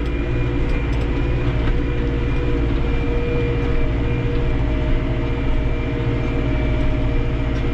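Massey Ferguson 6455 tractor's diesel engine running steadily under load while pulling a disc harrow, heard from inside the cab, with a thin steady whine alongside.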